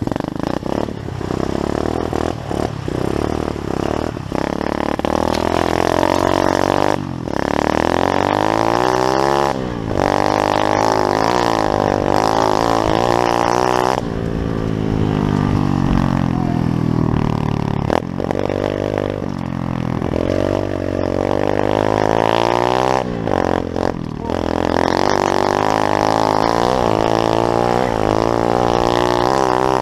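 Small pit bike engine being ridden, its pitch climbing and dropping again and again as the throttle is opened and closed.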